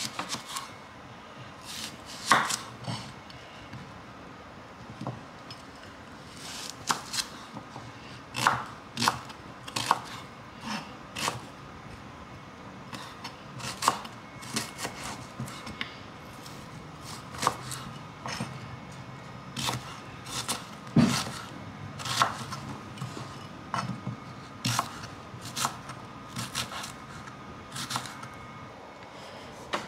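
Kitchen knife cutting a red onion into chunks on a wooden chopping board: irregular sharp knocks as the blade goes through the onion and strikes the board, about one or two a second.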